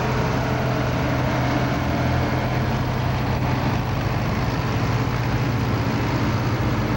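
Antique farm tractor engines running at a steady, unchanging speed: a low, even drone with no revving.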